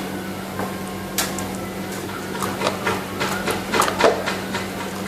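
Slime being stirred with a stirrer, giving irregular sharp clicks and squelchy pops, over a steady low hum.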